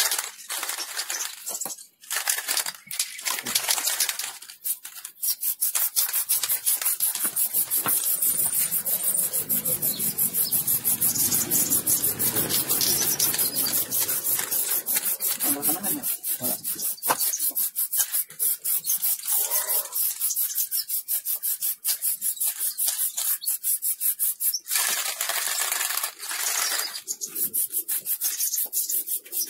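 Aerosol spray-paint can (Shogun Z) in use: a long run of fast, even rattling, typical of the can being shaken to mix the paint. There are bursts of spray hiss near the start and again about twenty-five seconds in.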